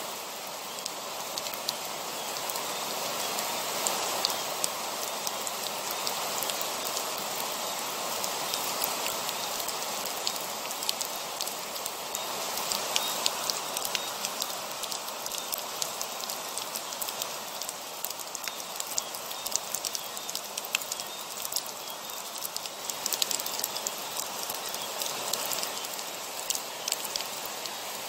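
Heavy rain falling steadily, with many individual drops striking a surface as sharp ticks over a dense, even hiss.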